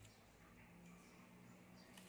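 Near silence: a faint low hum with a few soft clicks.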